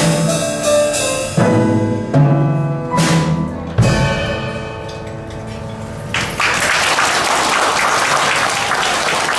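Upright piano and drum kit playing the last bars of a duet, ending on a final chord and drum hit about four seconds in that rings out and fades. An audience starts applauding about six seconds in.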